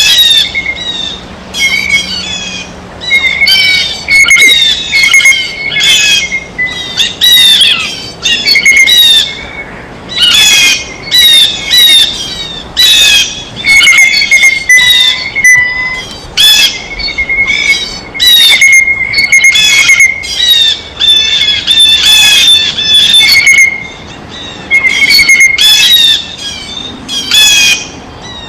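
Blue jays giving loud, harsh squawking calls in a rapid, unbroken series, one after another with short gaps.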